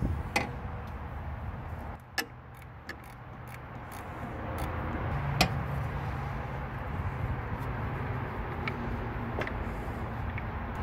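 A few scattered sharp metal clicks and taps as a ratchet and socket work a small timing-cover bolt loose, over a steady low hum that gets louder about halfway through.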